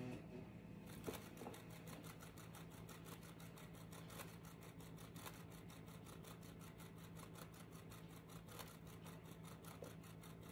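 Faint whirring of a hand-spun turntable carrying a wet acrylic-pour panel, its bearing giving a fast, even ticking over a low steady hum.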